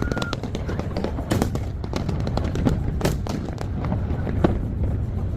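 Aerial fireworks bursting in a rapid series of bangs and crackles over a continuous low rumble, sped up to double speed.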